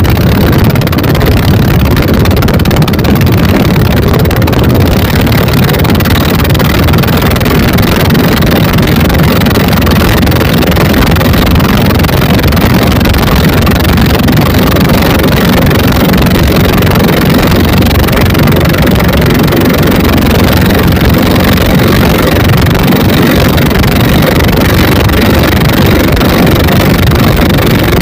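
Twin 24 HP dompeng single-cylinder diesel engines driving a wooden boat at speed, running loud and steady, with wind buffeting the microphone.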